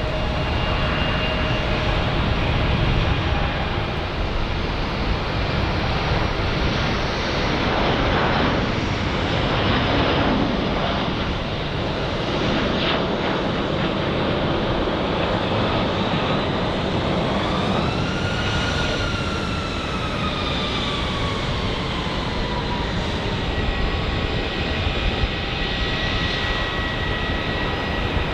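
Airbus A330 twin jet engines at takeoff power: a steady roar with an engine whine that rises and then falls in pitch as the airliner passes. Near the end a steadier high whine from another jet takes over.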